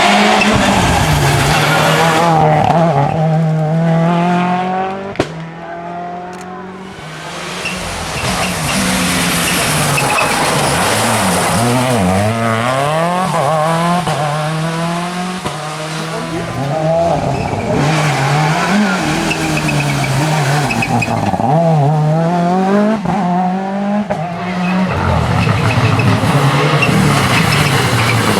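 Seat Córdoba WRC rally car engine revving hard, its pitch climbing and dropping again and again through gear changes and lifts, with tyre noise over the top. A single sharp crack about five seconds in.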